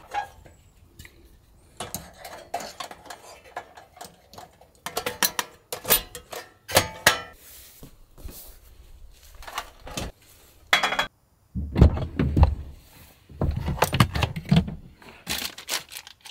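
Handling of metal and plastic camp cooking gear: a series of clinks, clatters and knocks as a portable butane stove is set up and gear is moved on a truck tailgate, with heavier thumps in the last few seconds.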